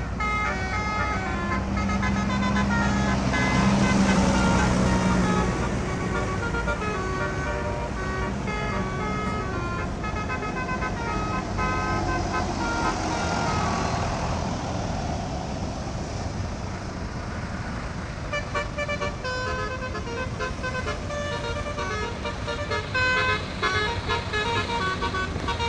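Telolet multi-tone horns on Basuri buses play short stepped tunes again and again over the noise of the bus engines. The engine noise swells about four seconds in and again in the middle.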